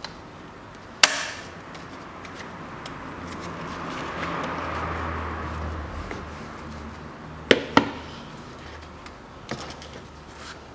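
Sharp clicks and knocks from hand work on a car's rubber air intake hose, its clamps, pliers and plastic parts. One knock comes about a second in and two come close together near eight seconds. In between is a rustle that swells and fades as the corrugated hose is handled.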